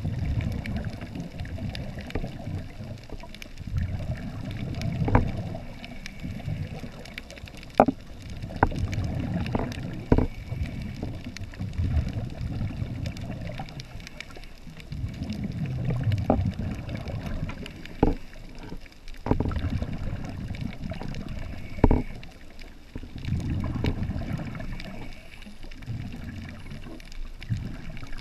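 Underwater sound of scuba exhaust bubbles rumbling in surges every few seconds, in time with the divers' breathing, with scattered sharp clicks and knocks against the camera housing.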